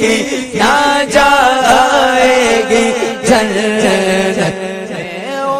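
A naat, an Islamic devotional song, sung in long winding phrases that glide up and down in pitch. It fades over the last second.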